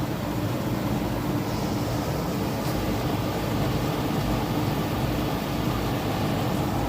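New American Standard Silver Series 3-ton R-454B air conditioner condensing unit running: condenser fan blowing with a steady hum from the compressor.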